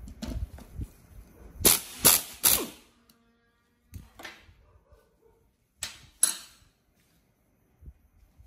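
Pneumatic impact wrench on a motorcycle's front axle nut, fired in three short rattling bursts in quick succession, with a few sharper, fainter metallic knocks and two more short bursts a few seconds later.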